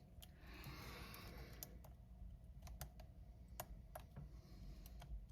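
Faint, irregular clicks of a lock pick and tension wrench working the pin stacks of a Brinks 50mm laminated steel padlock, with a soft scraping of the pick in the keyway during the first second or so.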